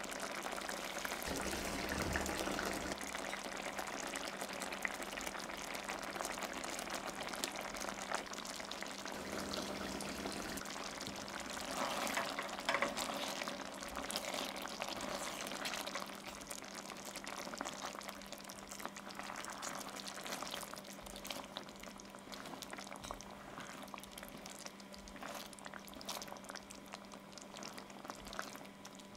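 Thick coconut-milk curry sauce bubbling at a simmer in a stainless steel pot, with a silicone spatula stirring through the sauce and beef pieces in wet, sloshing strokes. A louder wet stretch comes about twelve seconds in.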